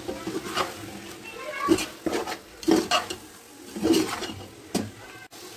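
Long slotted metal spoon stirring and scraping boiled chickpeas in masala around a metal pot while they are sautéed: about half a dozen scrapes and clinks at irregular intervals.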